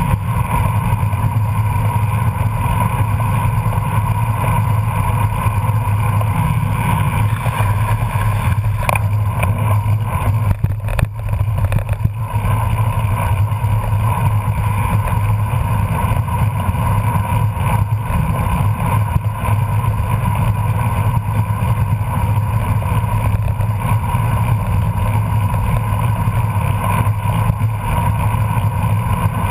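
Steady wind rush and road noise on a bike-mounted camera while riding at about 20 mph.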